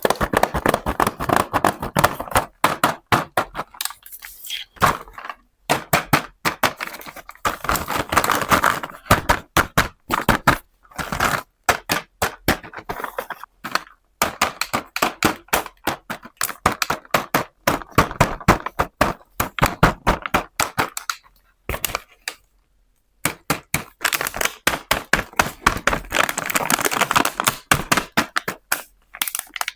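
Small plastic toy pieces being handled: quick, irregular runs of clicks and taps, in bursts with short pauses between them.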